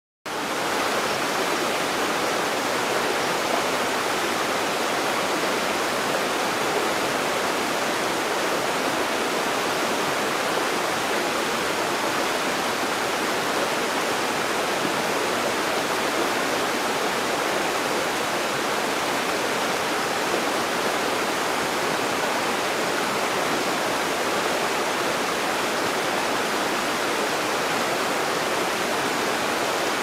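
Shallow rocky stream running below, a steady, even rush of water.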